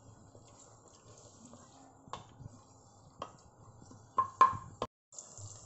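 Wooden spoon stirring sliced onions in a metal pan, knocking against the pan several times; the loudest knocks are a pair about four seconds in. Under the knocks, a faint steady sizzle of the onions softening in oil.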